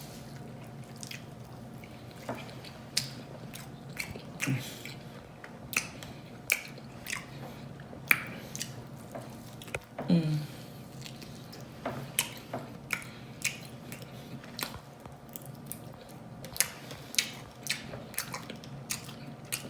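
A person chewing and smacking food up close, with many sharp wet clicks at irregular intervals, and a brief voiced sound with falling pitch about halfway.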